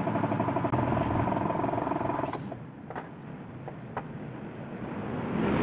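A nearby engine runs steadily with a fast, even pulse, then cuts off suddenly about two seconds in. After that come a few light metallic clicks as clutch springs are set onto a motorcycle's clutch pressure plate.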